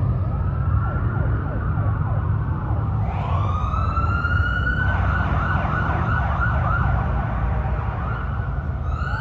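Police sirens of a passing motorcade escort: several overlapping wails, one rising about three seconds in and switching to a rapid yelp about two seconds later, over a steady low traffic rumble.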